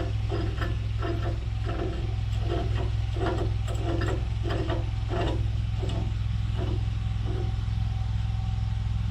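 Allis-Chalmers tractor engine running steadily, with a regular clunking about twice a second that fades out near the end.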